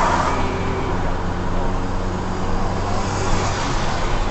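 Steady engine hum and road noise inside a car cruising on a highway, picked up by its dashcam.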